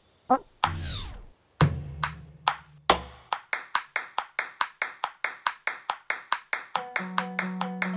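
Cartoon sound effects: a falling glide and three thumps a little over a second apart. Then a quick, even ticking starts, about four ticks a second, and a held low synth note joins it near the end as background music begins.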